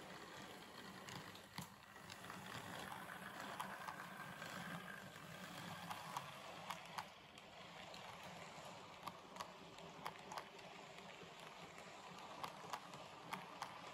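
Model train rolling past on its track: a faint steady rumble of wheels and motor with irregular sharp clicks from the wheels on the rails.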